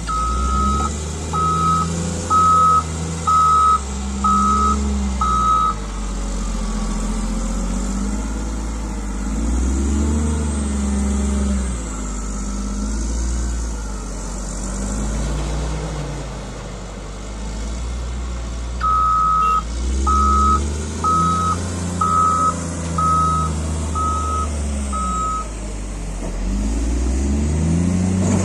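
Caterpillar 140GC motor grader's diesel engine running, its pitch rising and falling with load, while its reversing alarm beeps about once a second in two runs: six beeps at the start and seven more from about 19 seconds in.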